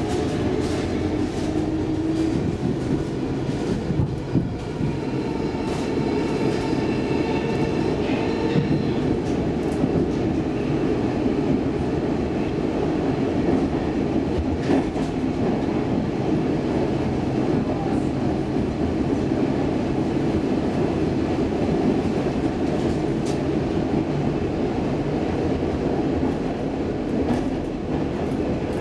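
Stockholm Metro C14 subway car heard from inside as the train pulls out of the station and runs into the tunnel: a steady rumble of steel wheels on rail with a motor whine rising in the first couple of seconds. A few sharp clicks from rail joints come through, and a brief high squeal sounds between about six and nine seconds in.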